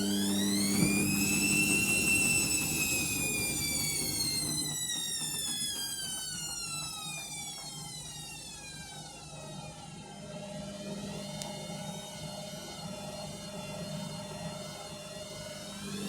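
Overloaded 7 kg washing machine on a spin attempt. The drum motor's whine rises for about two seconds, then winds down steadily over the next eight or so as the spin is abandoned, all over a steady hum. Near the end the whine starts rising again for another attempt.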